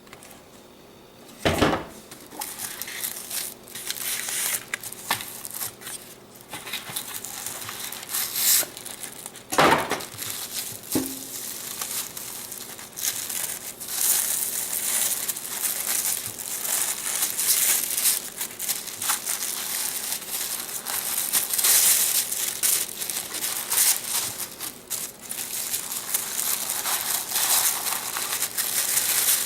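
Packaging being handled and unwrapped: an uneven, continuous rustling with many small crackles, and two sharp knocks, one about a second and a half in and one near ten seconds in.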